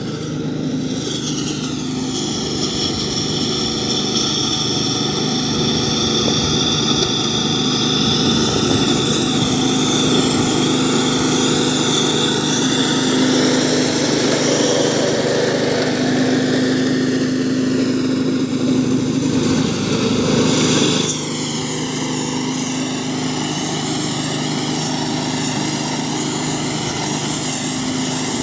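Petrol-engined cylinder (reel) lawn mower running steadily while cutting grass, its small engine and spinning reel making a continuous drone with a high whine. The level drops suddenly about two-thirds of the way through.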